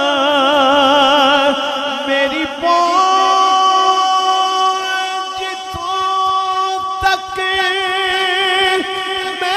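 A man singing a naat, one voice drawing out a melismatic line: strong vibrato for the first couple of seconds, then long held notes from about three seconds in.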